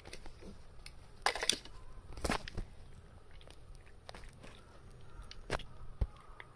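Cats eating wet meat food mixed with dry kibble from a metal tray: irregular crunches and clicks, with a few sharper clicks scattered through.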